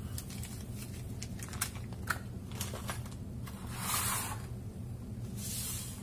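Small parts and plastic blister packs clicking and tapping as they are picked up off a wooden workbench, then two rustles of a plastic anti-static bag being handled, about four and five and a half seconds in. A steady low hum lies underneath.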